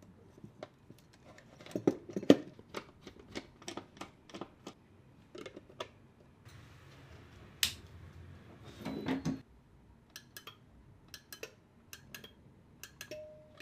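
Irregular light clicks and taps of small plastic and metal parts being handled as a wall switch is fitted, with a short rustle about seven seconds in and a louder clatter around nine seconds.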